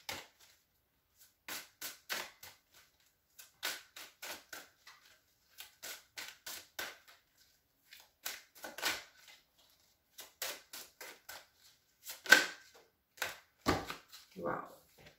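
A deck of tarot cards being shuffled by hand: an irregular run of quick, sharp taps and flicks as the cards slide and slap against the deck.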